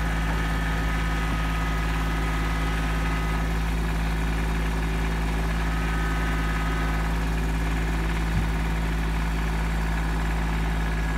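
Kubota compact tractor's diesel engine running steadily at low revs while it pushes against the shed, with one short knock about eight seconds in.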